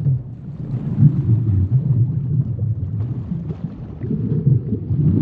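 Low, rumbling ambient soundtrack in the style of deep underwater sound, swelling and ebbing without a clear beat.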